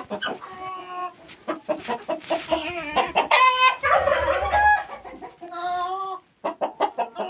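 Domestic hens clucking: a string of short calls with a couple of longer drawn-out ones.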